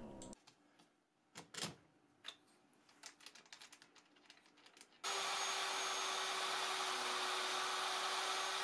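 A few faint clicks and taps, then about five seconds in a plunge router switches on abruptly and runs at a steady pitch.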